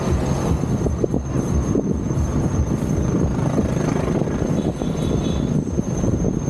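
Steady rumble of heavy motor traffic on a busy main road: engines and tyres of passing vehicles, heard from a bicycle riding among them.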